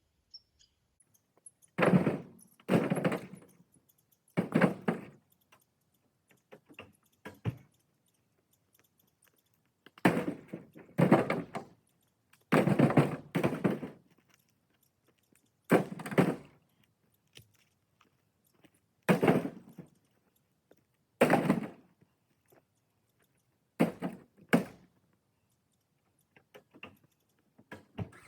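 Firewood pieces being tossed into a load one or two at a time, each landing with a heavy wooden thunk: about a dozen irregular thunks, some in quick pairs, with pauses between.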